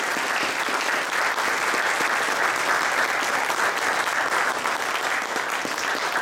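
Audience applauding, a dense steady patter of many hands clapping in a hall.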